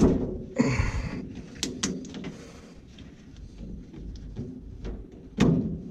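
Hands-on work at a boiler: a heavy knock, a short scraping rustle, then a scatter of sharp clicks and taps, with a second heavy knock near the end, as parts and tools are handled.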